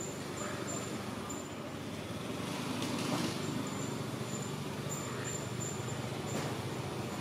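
Steady low background rumble of distant vehicle traffic, with a faint high-pitched tone pulsing on and off above it.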